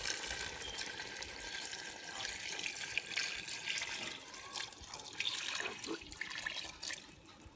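About two quarts of water poured steadily from a container into a pot of browned spare ribs and curry paste, splashing over the meat. The pour tapers off near the end.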